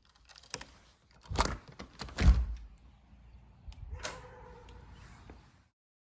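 Several thuds and knocks, the loudest about two seconds in, then a short steady tone lasting about a second. Everything cuts off abruptly near the end.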